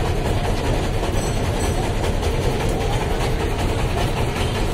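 A river boat's engine running steadily underway, a low, even drone with no break.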